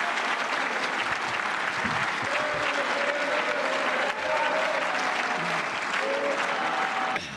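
Large audience applauding steadily, dense clapping with a few voices rising over it from about two and a half seconds in.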